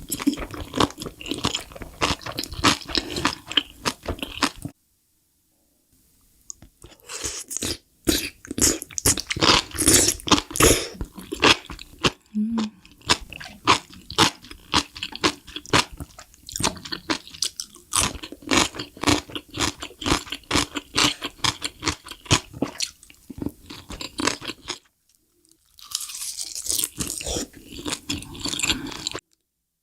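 Close-miked eating of crunchy mushrooms: people biting and chewing with dense, crackly crunching, broken twice by a brief silence.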